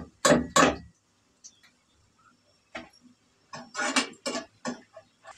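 Metal wire skimmer knocking and clattering against the wok's rim as fried onions are lifted out of the oil and shaken off. There are three sharp knocks at the start, then a single tap and a quick rattling cluster of knocks about four seconds in, as the onions are tipped into a tissue-lined basket.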